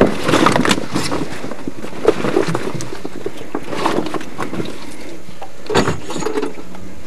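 Irregular knocks and rustles as a large wels catfish is handled and shifted on a plastic unhooking mat on a boat deck, over a steady background hiss.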